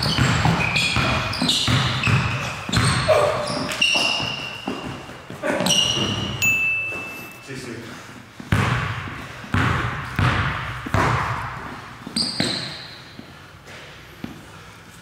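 Basketball being dribbled on a hardwood gym floor, bouncing about once a second and echoing in the large hall. Sneakers squeak sharply on the floor, with one longer squeak about six and a half seconds in.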